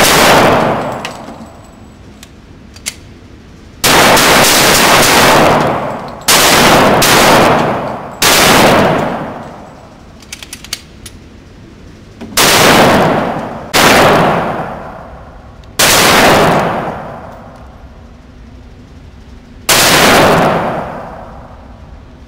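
Glock 23 .40 S&W pistol fired in single shots, about seven, spaced unevenly from one to four seconds apart, each leaving a long decaying ring. Faint small clicks fall between some shots.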